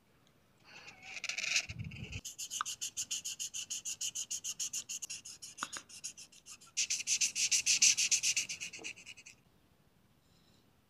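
Felt-tip art marker scribbling on paper, colouring in with rapid, even back-and-forth strokes, louder in the second half, then stopping near the end.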